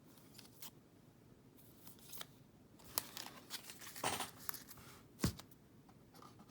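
Trading cards being handled and sorted: intermittent rustling and sharp little clicks and slaps, with a louder dull knock about five seconds in.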